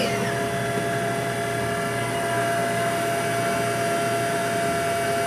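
The spindle of a 2002 Haas VF-3 vertical machining center running at steady speed: a steady machine whine with several fixed tones over a hum and an even rush.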